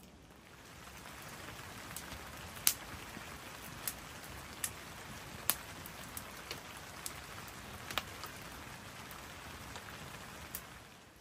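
Steady rain falling, an even hiss with separate large drops striking close by as sharp ticks, the loudest a few seconds in and again near the middle. The hiss swells in just after the start and drops away near the end.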